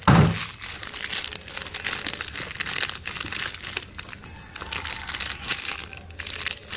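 Thin clear plastic bag crinkling and crackling irregularly as hands squeeze and knead soft bait paste packed inside it, with a louder brief burst at the very start.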